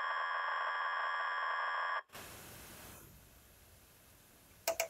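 Cassette data signal being played back to load into a Solton Ketron Programmer 24: a steady electronic sound of several held tones that cuts off abruptly about two seconds in. A short faint hiss follows, then two short clicks near the end.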